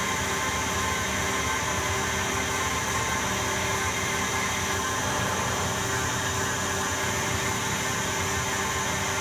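Harrison Alpha 400T CNC lathe running, its spindle turning an aluminium bar while the tool takes an automatic parallel-turning pass. A steady machine hum with several steady high tones over it.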